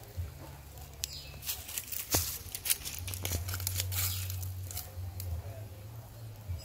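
Scattered sharp crackles and rustles over a steady low rumble, around a pot on an open wood fire as whole fish are laid into the sauce.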